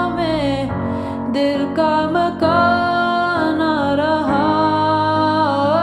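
A slow, tender song: a voice singing long held notes that slide between pitches, over soft guitar accompaniment.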